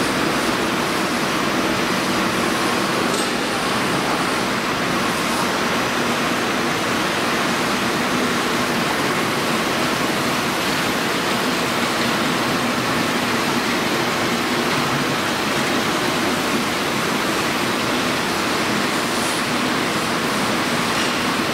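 Steady, even machine noise of a running PP raffia split-film yarn extrusion line, with its winders spooling polypropylene tape onto bobbins.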